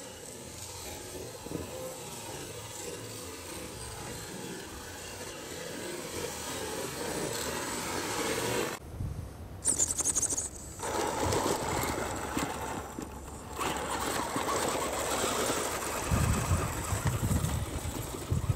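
1/10-scale RC crawler truck (modified Axial SCX10) with dual electric motors, its motors and drivetrain whining quietly as it crawls over frozen dirt. The sound drops out for a moment about nine seconds in, then comes back louder, with low rumbling near the end.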